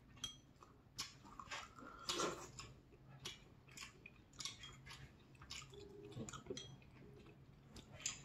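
Close-miked eating sounds of napa cabbage hot pot: quiet chewing, smacking and slurping, a scattered string of short wet mouth sounds about every half second.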